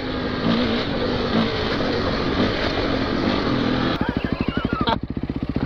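Single-cylinder dirt bike engine running steadily under throttle. About four seconds in it gives way to a dirt bike idling with slow, even firing pulses.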